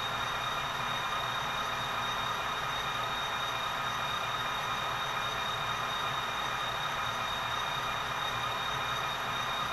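SoundTraxx Tsunami sound decoders in HO scale model diesel locomotives playing a steady idling engine sound through their small onboard speakers, with a few high tones held throughout.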